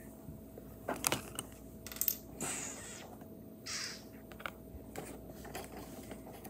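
Small plastic kit parts clicking and clattering against a hard countertop and the wooden crane arm as they are handled, with the sharpest clicks about one and two seconds in, and a short rustle near the middle.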